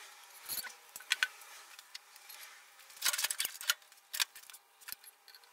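Metal front-fork parts of a BMW airhead (fork tube, spacers, spring) clinking and knocking as they are handled and set down on the bench: a scatter of sharp clicks, busiest about three seconds in.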